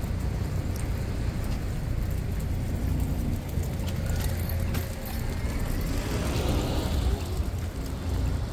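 A baby stroller's wheels rolling over the street pavement, a steady low rumble with small knocks, over city traffic noise; a hiss swells and fades about six to seven seconds in.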